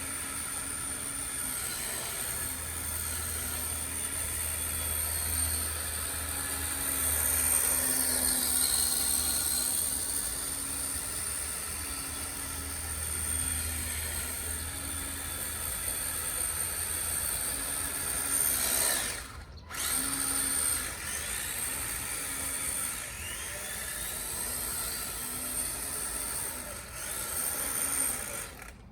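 Electric motor of a Kyosho Blizzard RC snowcat, converted from a nitro engine, running with a steady high whine that swells and eases. It cuts out briefly about two-thirds of the way through, starts again, and stops abruptly near the end.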